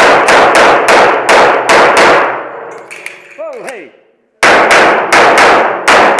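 Semi-automatic pistol fired in fast strings, each shot echoing off concrete walls: about seven quick shots, a pause of about two seconds with a few light clicks, then about five more quick shots.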